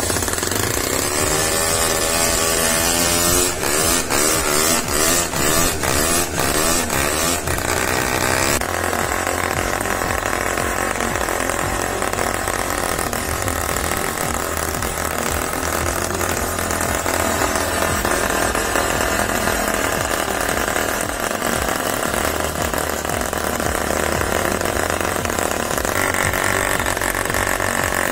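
Miniature single-cylinder gasoline model engine being spun up by a cordless drill on its flywheel, with a rising whine, then firing in uneven pops from about three seconds in. At about eight seconds it catches and runs on steadily by itself.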